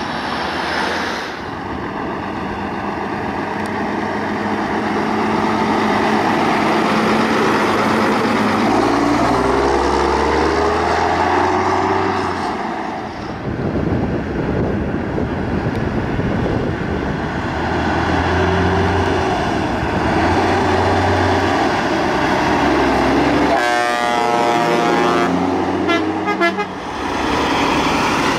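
Heavy trucks with open, straight-piped exhausts passing one after another, their diesel engines running loud and rising and falling as they pull by. Horn blasts sound near the end.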